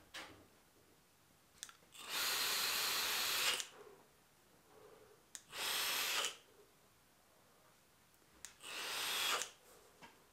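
A long, even, airy hiss as vapour is drawn through a Geekvape Cerberus sub-ohm tank on an Aegis X mod firing at 80 watts with the airflow fully open. Then come two shorter breaths blowing the vapour out, the last one growing louder.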